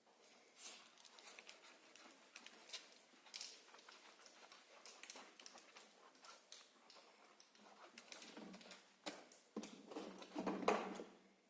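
Faint scattered patter and rustling from handling a wet dog in the bath, with a louder rustling burst near the end.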